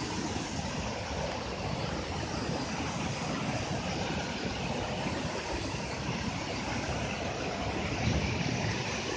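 Mountain river rapids rushing over boulders: a steady noise of fast-flowing white water.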